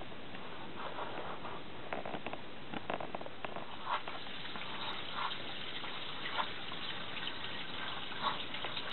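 Water splashing and dripping as a wet bicycle inner tube is handled in a sink, with short scattered splashes over a steady hiss.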